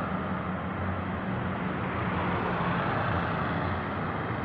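A tour bus passing on the road: steady diesel engine hum and tyre noise, swelling slightly about three seconds in.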